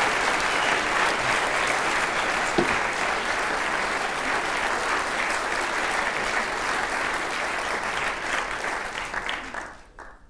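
Audience applauding, a steady dense clapping that dies away about nine and a half seconds in.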